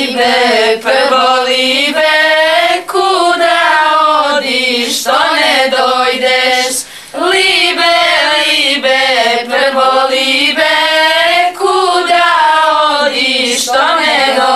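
A group of women singing a slow traditional folk song in unison, in long held, wavering phrases of about two seconds with short breaths between them.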